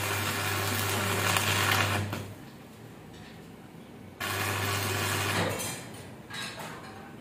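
Electric metalworking machine running in bursts: a steady low buzzing hum with a harsh hissing noise over it. It runs for about two seconds, stops, then starts sharply again for about a second and a half, with a brief third burst near the end.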